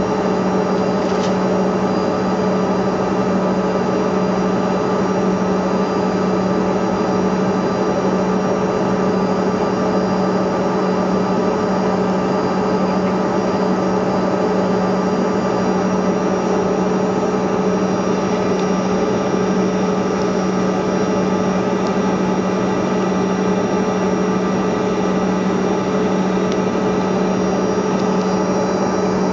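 Steady drone of a Bombardier CRJ200's General Electric CF34 turbofan engines at taxi power, heard inside the cabin: an even rush with a constant low hum that neither rises nor falls.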